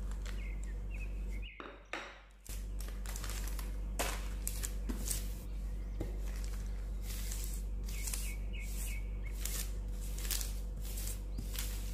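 Wooden rolling pin rolled back and forth over dough under parchment paper, the paper rustling and crinkling with each stroke over a steady low hum. The sound drops out briefly about two seconds in.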